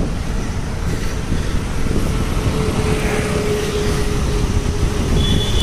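Road traffic noise and wind buffeting the microphone on a moving bicycle, a steady low rumble. A steady hum comes in about halfway through, and a high-pitched squeal starts near the end.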